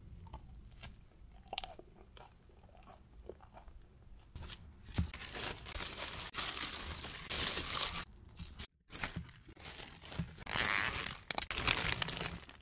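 Thin paper crinkling and rustling as hands wrap a ciabatta loaf in it, with a steady run of rustling in the middle. After a short break, a plastic zipper bag crinkles as the wrapped loaves are handled in it.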